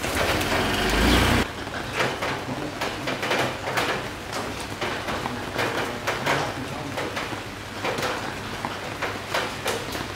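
Marinated pork belly sizzling on a grill over charcoal, with many small crackling pops as juices drip onto the hot coals. A loud low rumble fills the first second and a half.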